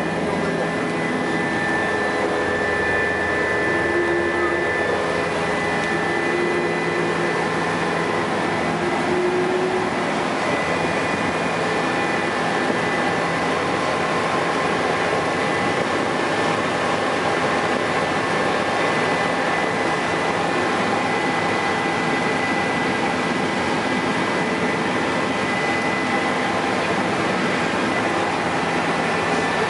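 Helicopter cabin noise in flight: the steady drone of the engine and rotors heard from inside, with a constant high whine over it.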